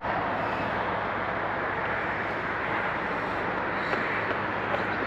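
Steady vehicle noise: an even, unbroken rumble and hiss with no distinct events.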